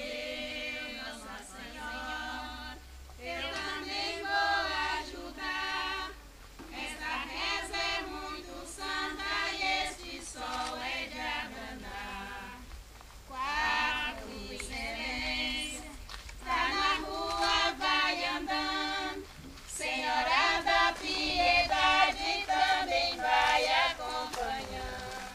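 A group of women singing an incelência de chuva, a Brazilian folk rain-prayer chant, a cappella, in sung phrases with short pauses between them.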